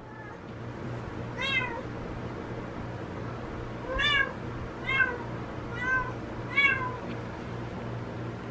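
Domestic cat meowing repeatedly, calling for a missing kitten: one short meow, then after a pause four more about a second apart, each falling in pitch at the end.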